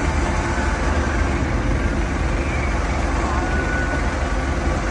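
A forklift's engine running steadily at low revs.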